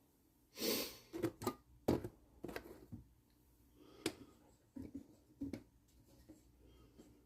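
Workbench handling noise: a brief rustle, then a series of separate light clicks and knocks as small objects are picked up and set down.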